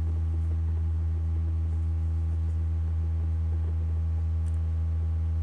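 Steady low electrical hum with a stack of fainter higher overtones, unchanging in pitch and level.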